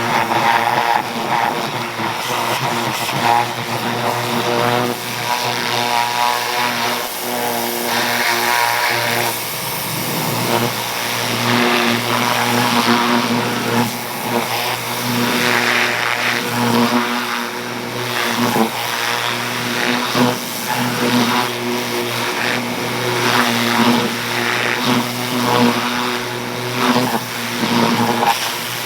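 Pressure washer running: a steady motor hum under the hiss of its water jet spraying gummed-up grass off a mower deck. The hiss swells and fades as the spray moves over the deck.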